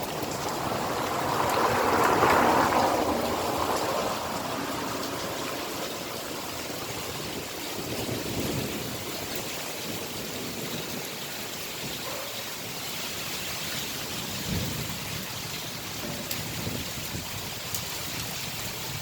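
Heavy rain falling steadily in a summer thunderstorm, with a louder surge about two seconds in that eases off by about four seconds.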